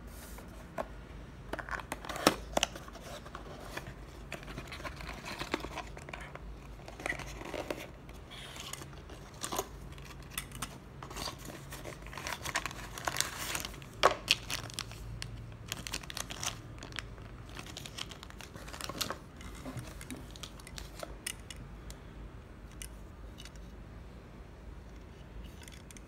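Packaging being handled during an unboxing: a cardboard box opened and a clear plastic bag crinkled, with scattered rustles, clicks and sharp snaps. The loudest snaps come about two seconds in and near the middle, and the handling grows quieter in the last few seconds.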